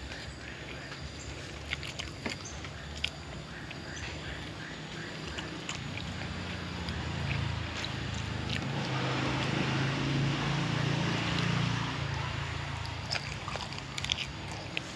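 A low rumble that builds to its loudest in the middle and eases off near the end, with scattered light clicks over it and a brief run of faint high chirps near the start.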